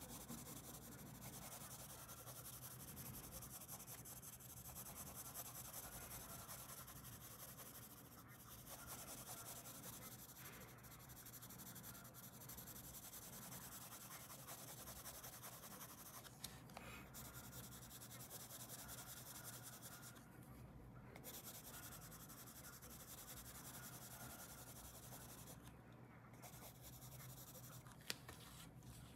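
Colored pencil rubbing back and forth on paper as a stripe is shaded in: a faint, continuous scratching, with a couple of brief pauses in the second half.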